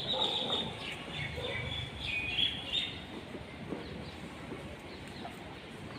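Faint bird chirps over low background noise, clustered in the first half.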